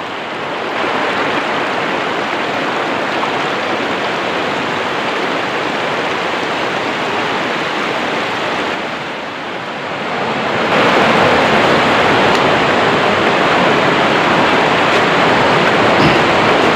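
Rushing river water, a steady rush that grows louder and fuller about eleven seconds in.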